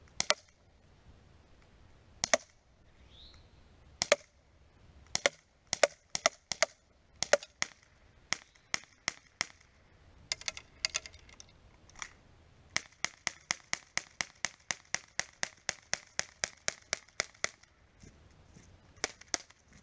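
KWC CO2 Baby Desert Eagle, a non-blowback airsoft pistol, firing 6 mm BBs with sharp pops: several slow, spaced shots, then a fast string of about four shots a second as the magazine is emptied, then two last shots near the end.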